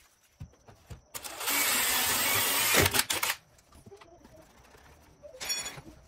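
DeWalt cordless drill running in one loud burst of about two seconds, fixing plastic cable duct to a block wall, then a brief second burst near the end.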